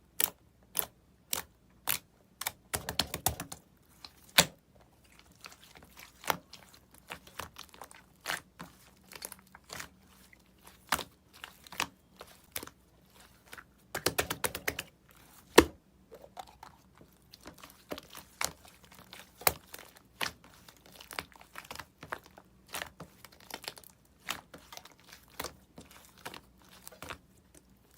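Pink and purple slime being pressed and squished by hand, making sharp clicks and pops as air pockets burst. Two denser bursts of crackling come about three seconds in and again around the middle.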